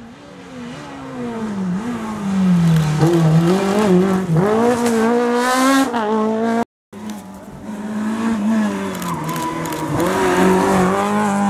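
Rally car engines at full throttle: the first car's engine note climbs in steps as it shifts up through the gears while passing close by. It cuts off abruptly, then a second rally car's engine revs hard through a corner.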